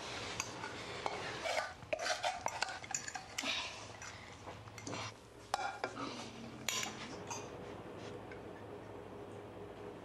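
Metal saucepan, serving spoon and plates clattering as food is dished out: a run of clinks and scrapes, busiest in the first half and dying away after about seven and a half seconds, over a steady low hum.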